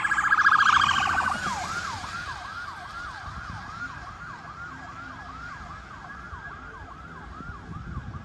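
Emergency vehicle siren: a rapid warble for about the first second, then a yelp rising and falling about three times a second, growing fainter.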